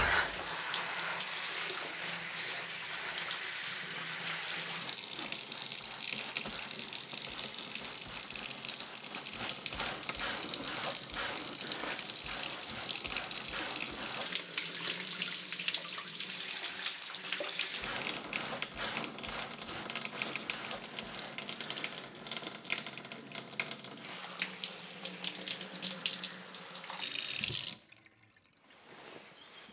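Shower running, a steady spray of water that cuts off suddenly near the end.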